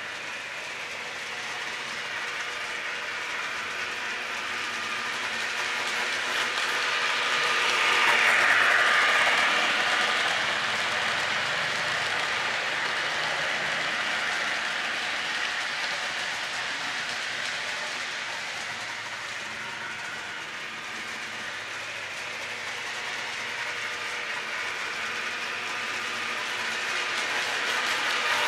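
Lionel O-gauge model freight train, hauled by an EMD SD9, running on its track: wheels clicking and rolling over the rails with the locomotive's gears whirring. It grows louder as the train passes close about eight seconds in, fades, and rises again as the engine comes back round near the end.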